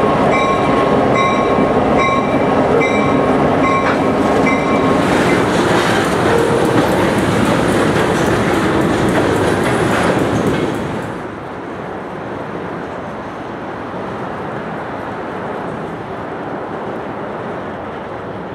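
Freight train's tank cars and covered hoppers rolling past at close range, for the first few seconds with a short ringing tone repeated a little more than once a second. About eleven seconds in, the sound drops to a quieter, steady rumble.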